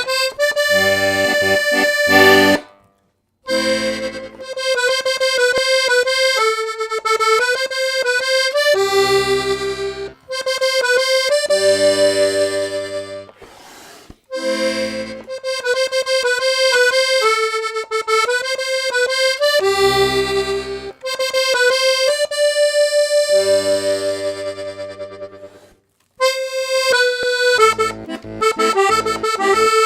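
Parrot Falcon three-row diatonic button accordion in G/C/F, its treble reeds tuned two middle voices (MM), playing a tune: a melody over short repeated bass-button chords, in phrases with brief pauses about three seconds in and near the end.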